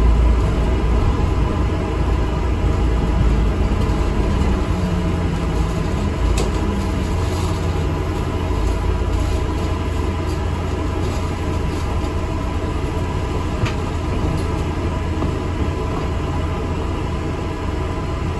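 ADL Enviro 400 MMC double-decker bus running along the road, heard from inside: a steady low engine and road rumble whose pitch shifts in the first few seconds. Two sharp clicks or rattles come through, about a third of the way in and again about three-quarters of the way in.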